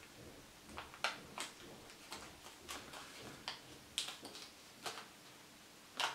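A paper banknote crackling and crinkling in the fingers as it is folded and creased by hand: a dozen or so short, sharp crackles at irregular intervals.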